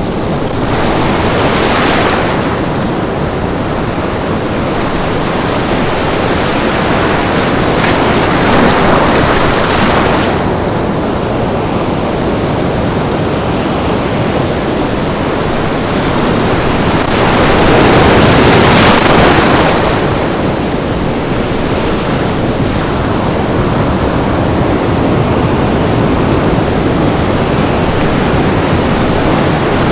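Sea surf washing onto a beach: a continuous rush of water with three bigger waves surging and falling away, the loudest about eighteen seconds in.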